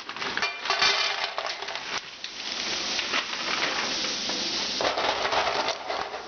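Frozen pre-cooked shrimp tipped into a hot frying pan, clattering in with many small clicks over the first two seconds, then sizzling steadily.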